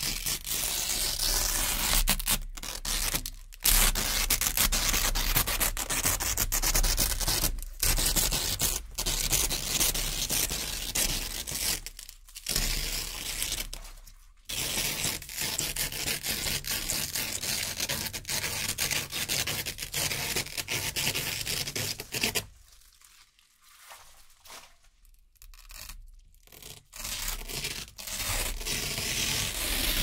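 Velcro (hook-and-loop) fastener strips being peeled off a board one after another: a near-continuous crackling rip. There are two brief pauses, one early and one around the middle, and a much quieter, broken stretch about three quarters of the way through.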